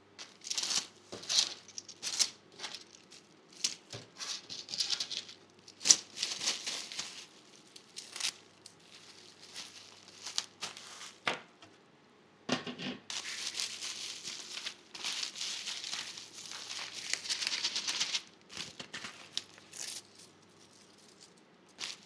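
Plastic bubble mailers and bubble wrap crinkling and rustling as they are handled, in irregular bursts with sharp crackles. After a knock about halfway through comes a longer, continuous stretch of crinkling.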